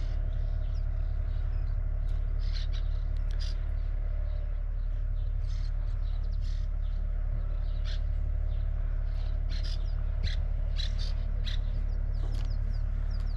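Birds chirping in scattered short calls over a steady low rumble.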